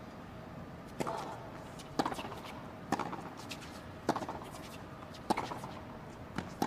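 Tennis rally: a ball struck back and forth by rackets, six crisp hits about a second apart.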